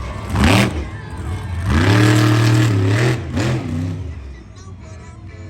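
Monster truck engine revving: a short blip, then a longer rev that climbs, holds high for over a second and falls away, with the sound dropping quieter near the end.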